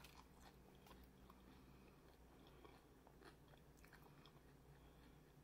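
Faint chewing of crunchy tortilla chips and hard taco shell, with a few soft, scattered crunches.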